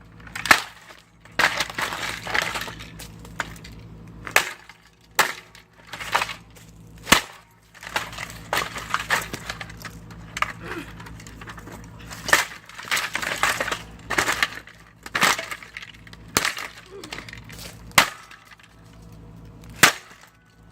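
A portable CD radio being smashed: about a dozen hard impacts at irregular intervals, with cracking and rattling of broken plastic between the blows.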